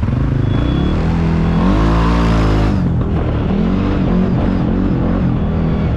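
ATV engine under way, its revs climbing sharply to a peak about two seconds in and dropping back, then rising and falling several more times in smaller surges.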